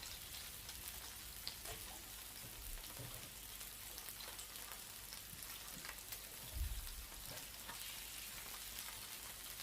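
Meat sizzling steadily on a Tefal tabletop gourmet grill, a fine crackling hiss with scattered small pops and a soft low thump about two-thirds of the way in.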